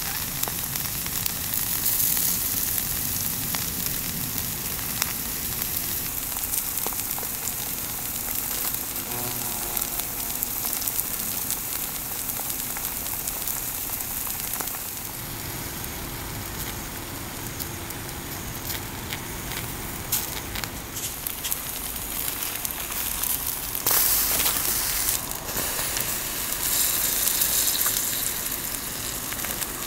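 Food sizzling and crackling as it cooks over heat: a steady sizzle with frequent small pops, louder for a few seconds about two-thirds of the way through.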